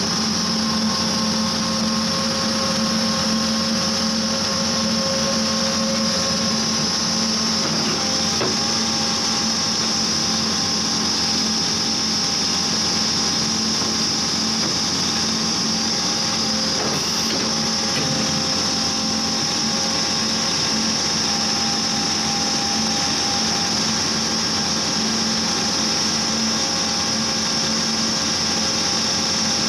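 Vermeer D80x100 horizontal directional drilling rig running steadily: its engine and hydraulics give a constant hum with several fixed tones and a high steady whine over the top.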